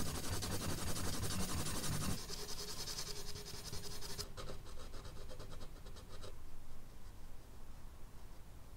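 Charcoal pencil scratching over medium-surface drawing paper in quick hatching strokes. The strokes are dense and loud for about the first two seconds, then lighter and sparser, stopping about six seconds in.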